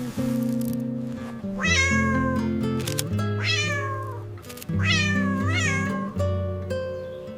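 A cat meowing three times, each call falling in pitch and the last with a quick wobble, over steady background music.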